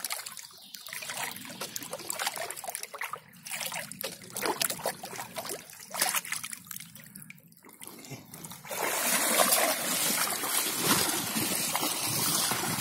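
Shallow river water splashing and trickling as a plastic tray lined with beekeeper's honeycomb is dipped and lifted, water draining off it in broken spells. About nine seconds in, louder continuous splashing of boots wading through the shallows.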